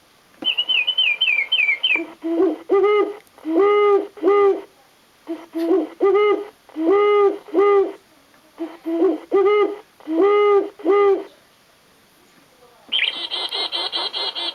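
National Audubon Society singing bird wall clock playing recorded bird calls through its speaker: a short run of quick falling chirps, then a series of low owl-like hoots in three groups, then a fast high trill near the end.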